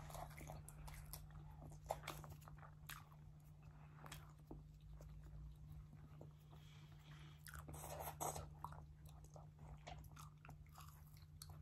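Faint close-up mouth sounds of eating a pepperoni puff roll: soft biting, chewing and small crackles of the pastry, with a louder cluster of chewing about eight seconds in, over a steady low hum.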